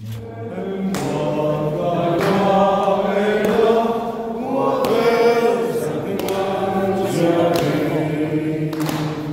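A group of people singing together, choir-style.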